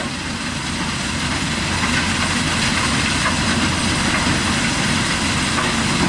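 Heavy diesel construction machinery running steadily: a tracked excavator and a mobile gravel screening plant, with a constant low engine rumble under a rushing mechanical noise.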